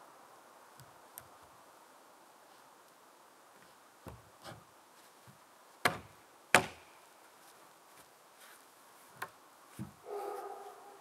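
Sparse, irregular knocks of wood being struck as the top logs of a log-cabin wall are worked on, the two loudest about a second apart near the middle. A brief pitched sound follows near the end.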